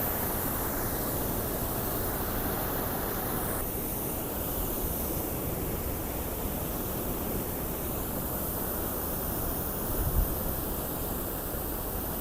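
Waterfall rushing: a steady, even hiss of falling water. A brief low thump sounds about ten seconds in.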